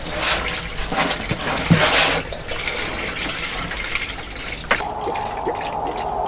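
Green antifreeze coolant pouring from a plastic drain pan into a funnel in the radiator filler neck, splashing and trickling as the radiator is filled. A steady tone joins about three-quarters of the way through.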